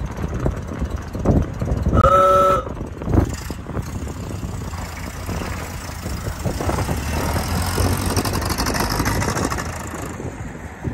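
A vehicle running with a low rumble, and a short single horn toot about two seconds in.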